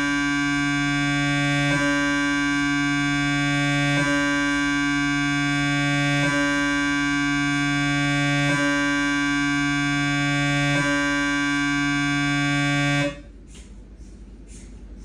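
Siemens MAGNETOM Lumina 3 T MRI scanner's gradient coils running a T1-weighted transverse 3D gradient echo (VIBE) sequence with 1 mm slices. A loud steady tone with many overtones, broken briefly about every two seconds. It cuts off about 13 seconds in, leaving a much quieter background noise.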